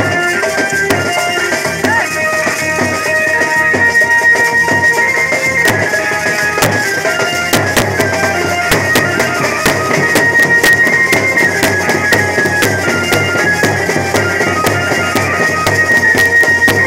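Banjo baja band music: an amplified Indian banjo plays a melody of held notes over regular drum strokes.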